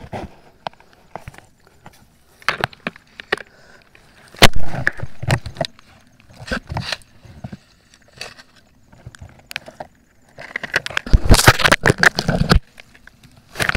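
Irregular rustling and crackling of dry leaves, grass and twigs with scattered sharp knocks, as someone moves and handles things in brush. There is a longer, louder scuffle about ten seconds in.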